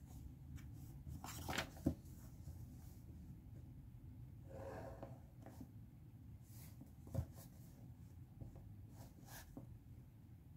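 Faint desk sounds of a pen writing on a paper worksheet, with a few small sharp knocks as a clear plastic ruler is handled and laid on the page, over a low steady hum.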